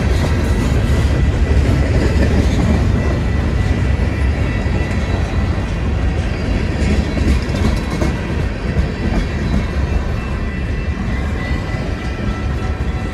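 A train rolling past, its wheels and cars making a steady low rumble.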